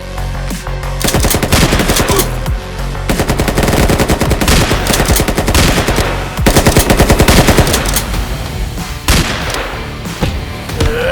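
Rapid automatic gunfire in long bursts of shots fired in quick succession, starting about a second in and thinning out near the end, over background music.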